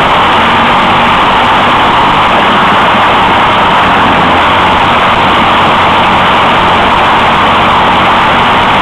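Racing kart's engine running flat out, loud and steady with no break, heard from a camera mounted on the kart.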